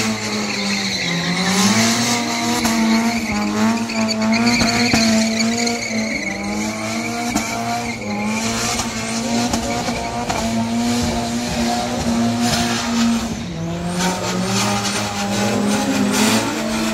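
Drift car sliding with its engine held at steady revs while the tyres squeal and skid, the revs dropping briefly about a second in and again a few seconds before the end.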